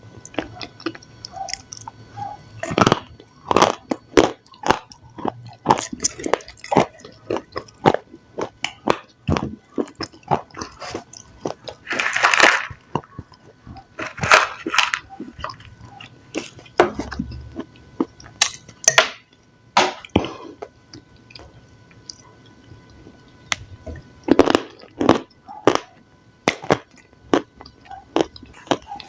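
Close-miked ASMR eating: a person chewing and biting crunchy food, with irregular sharp crunches and a few louder bites.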